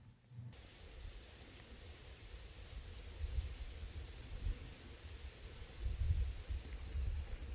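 Insects trilling steadily in a high-pitched drone, getting louder near the end, over a low uneven rumble.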